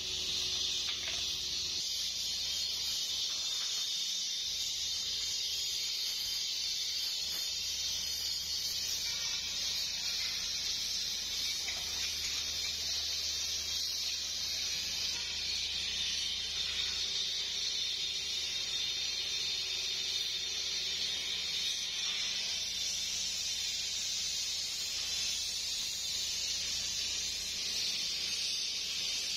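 Gas brazing torch burning with a steady hiss, a thin high tone running through it.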